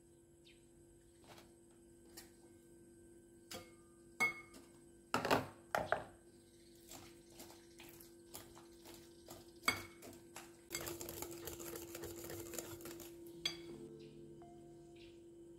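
Kitchen clatter: utensils and dishes clinking and knocking in scattered taps, loudest a little past the middle, then a few seconds of continuous scraping noise. Faint background music comes in near the end.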